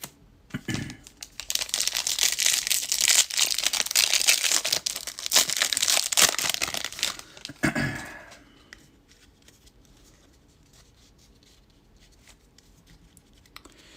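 Foil wrapper of a 2021 Bowman Draft jumbo hobby pack being torn open and crinkled, a dense crackling that lasts about six seconds.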